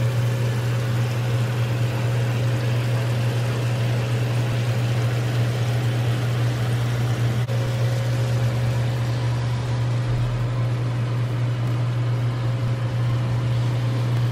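A loud, steady low hum with an even hiss over it, unchanging throughout.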